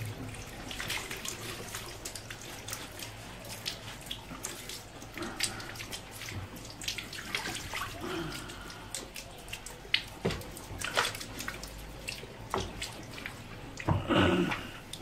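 Sulphuric acid draining and splashing out of the cell openings of an old AGS GX 132 lead-acid battery tipped onto a tiled floor, the electrolyte being emptied out. Scattered clicks and knocks of the plastic case being handled, with a louder knock near the end.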